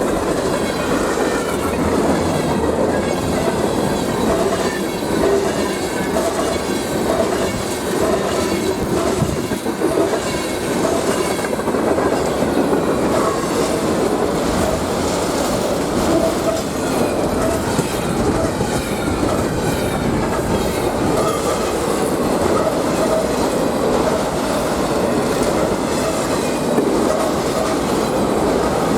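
Freight train cars rolling steadily past on steel rails, the wheels clacking over the track, with a steady wheel squeal running through it.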